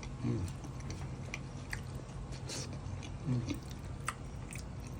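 A person chewing a mouthful of fried snapper, with small wet lip smacks and clicks. There are two brief low hums of enjoyment, one just after the start and one about three seconds in.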